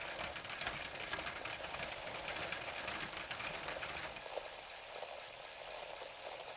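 Film-projector sound effect: a fast, steady mechanical clatter that turns quieter about four seconds in.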